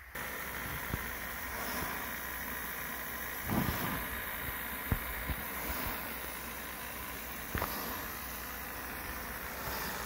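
Raingun sprinkler throwing a high-pressure water jet: a steady rushing noise with a faint hum, broken by a few short thumps, the strongest about three and a half seconds in.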